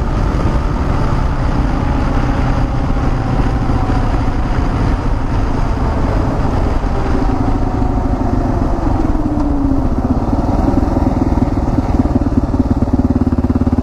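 Single-cylinder or twin adventure motorcycle engine running at road speed from the rider's own bike, mixed with steady wind rush. The engine note falls between about seven and ten seconds in as the bike eases off, then runs steady again.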